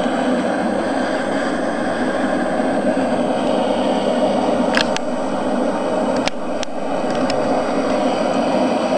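MAP gas torch burning steadily into a small can forge, a constant rushing hiss, with a few sharp clicks between about five and seven seconds in.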